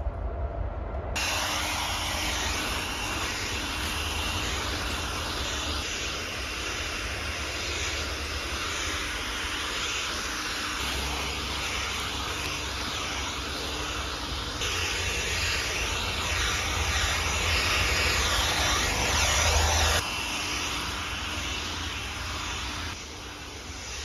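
Milwaukee battery-powered leaf blower running steadily, its jet of air blowing dry leaves off a dirt path. The rush of air starts about a second in and jumps abruptly in loudness a few times.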